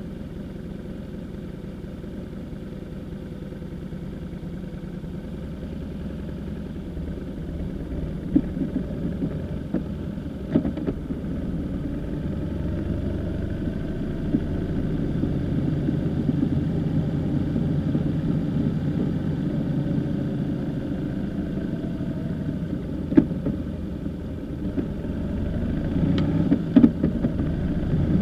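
Motorcycle engine idling, then pulling away and running steadily at low speed, growing louder from about six seconds in. A few short, sharp knocks cut through it.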